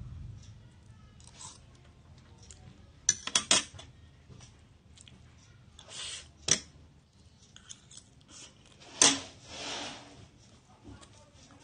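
A person eating fried instant noodles close to the microphone: strands slurped in with short sucking hisses, and chewing. Sharp clicks and smacks come through, the loudest a quick cluster about three seconds in and another about nine seconds in.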